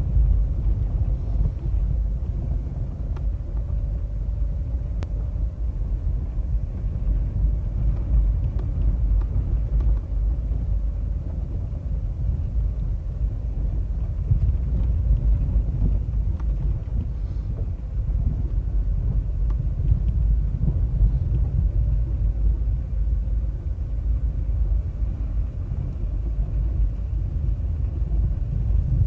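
Car driving on a dirt road, heard from inside the cabin: a steady low rumble of tyres on the rough surface and the engine underneath.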